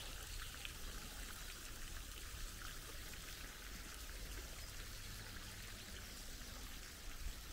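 Faint, steady splashing of a garden fountain's water falling into an ornamental pool.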